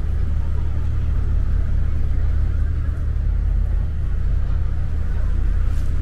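Boat engine running with a low, steady drone, with faint crowd chatter behind it.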